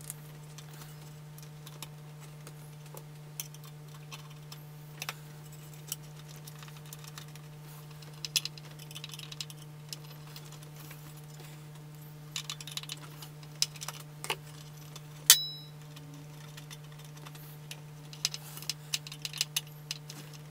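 Scattered small clicks and light metallic rattles of hands working on parts inside an amplifier chassis, with one sharper click about fifteen seconds in, over a steady low hum.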